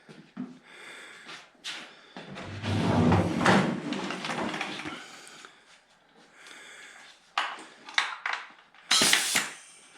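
Handling noise from a pneumatic nailer and its air hose as the tool is oiled and readied: a rush of noise with some low rumble for a few seconds, then a handful of sharp clicks and knocks near the end.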